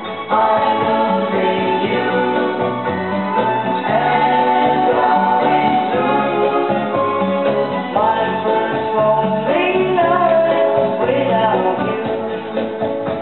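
A song with singing and guitar, played back from a vinyl record on a turntable.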